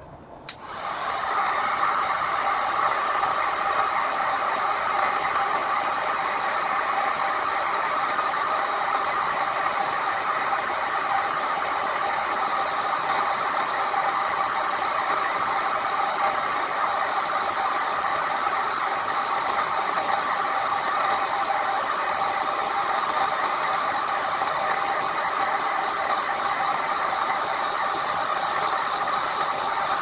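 Electric heat gun blowing hot air: a steady rush of air with a fan whine. It comes up to full strength about a second in and then holds even.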